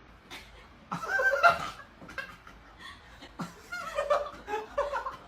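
A person laughing in short, broken snickers and chuckles.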